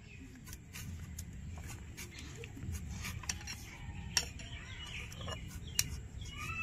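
Scattered light clicks, knocks and scrapes of hand work with kitchen utensils over a low background rumble, with birds chirping faintly near the end.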